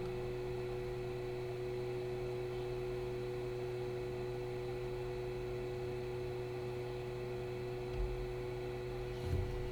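Steady electrical hum made of several held tones over a faint hiss, with two soft knocks near the end.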